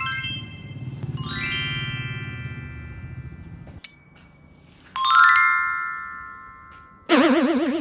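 Bright chime sound effects: a sweeping run of bell tones that rings and dies away, a short ping, a second sweeping chime, then a loud warbling, wobbling tone near the end.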